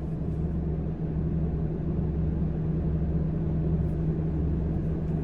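Steady low hum of a car engine idling, a constant drone with no change in pitch.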